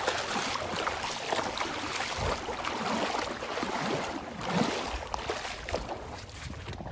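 Shallow stream water sloshing and splashing irregularly as someone wades through it.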